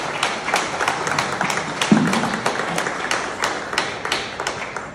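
Audience applauding: many hands clapping together, with individual claps standing out sharply close by.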